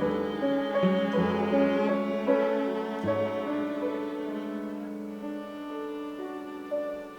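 Slow instrumental classical music with long held notes, growing gradually quieter toward the end.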